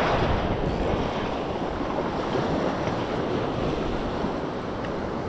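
Small shore-break waves washing up the beach, the rush of surf loudest at first and slowly easing off, with wind buffeting the microphone.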